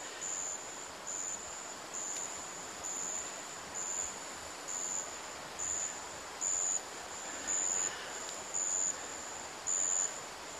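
A rainforest insect calls with a high, thin, steady buzz that swells into louder pulses about once a second, over a faint hiss of forest ambience.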